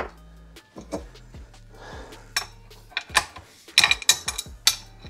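Metal clinks and taps as tools and cam followers knock against a Ford 2.3L Lima cast-iron cylinder head while it is stripped, with a quick run of ringing clinks about four seconds in.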